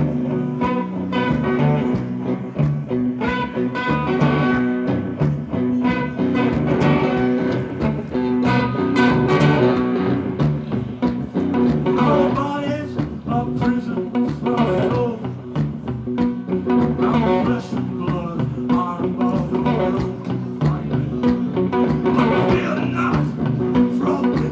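Live blues on electric slide guitar: a metal slide on the strings over a steady, driving strummed rhythm, with long held notes and a constant low drone.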